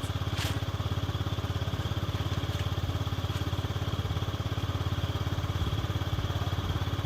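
An engine running steadily at idle, a fast, even low chugging pulse. There is a brief sharp high-pitched sound about half a second in.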